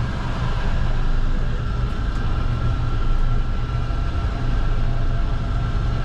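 Steady low drone of a river passenger boat's engines, heard from inside the enclosed cabin. A faint high steady whine comes in about a second and a half in and holds.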